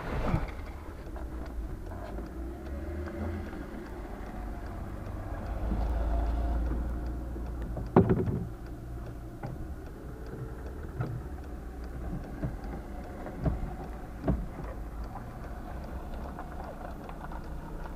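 Sharp knocks and clunks from a crash-damaged Skoda Fabia bonnet being forced up and opened by hand. The sharpest knock comes about eight seconds in, with a few lighter ones later and a low rumble swelling and fading just before it.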